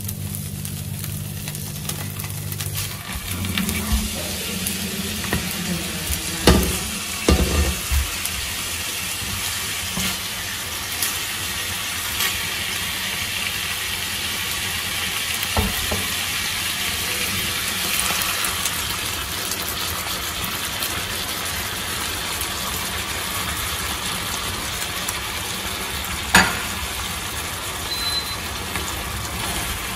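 Tuna steaks frying in hot oil in a nonstick pan, a steady sizzle, with a few knocks of a utensil against the pan and one sharp knock near the end.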